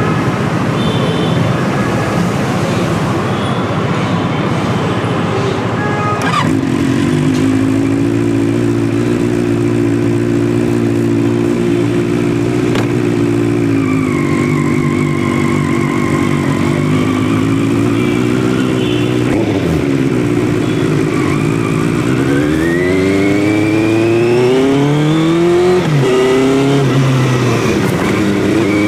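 Benelli 600i inline-four motorcycle engine running loud through its exhaust. It sounds rough for the first few seconds, then holds a steady note. In the last third it revs up twice, the pitch climbing, dropping at a shift and climbing again.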